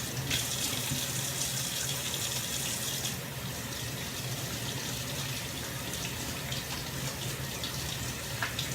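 Kitchen tap running into a sink while hands are washed under it: a steady rush of water, a little brighter for the first few seconds.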